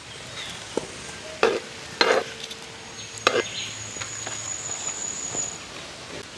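A knife slicing pieces off a pepper into a pot of simmering coconut milk, with four short sharp snicks spread over the first few seconds, over a steady hiss.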